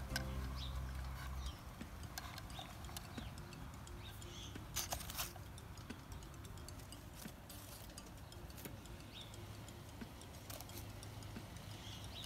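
Faint background music that stops about a second and a half in, then faint knocks and clicks of plastic nursery plant pots being lifted off and set down on a wooden table, with a couple of sharper knocks around five seconds in.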